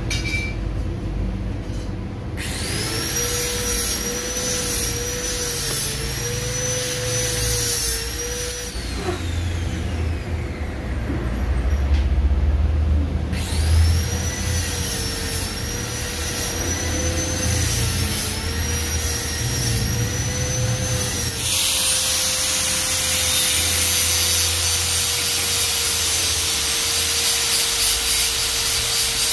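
Angle grinder with an abrasive disc on stainless steel sheet. It twice spins up, runs with its pitch wavering under load and coasts down, then grinds steadily from about 21 s onward.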